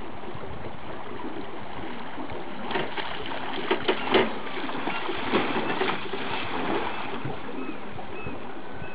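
Silver (coho) salmon thrashing in a landing net at the water's surface beside the boat, a cluster of sharp splashes from about three seconds in until about seven seconds, the loudest about four seconds in. Steady wind and river water noise underneath.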